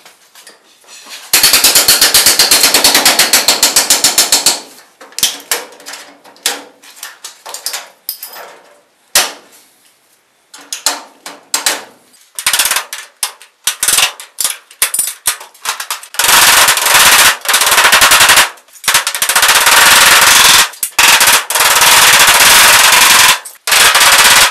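Sped-up sounds of work on galvanized sheet-metal ductwork: loud strings of rapid, evenly spaced metallic clicks and impacts. One run comes about a second in and lasts about three seconds, scattered clicks follow, and longer dense runs fill most of the second half.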